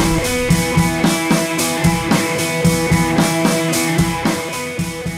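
Background music with a steady drum-kit beat and guitar, easing down near the end.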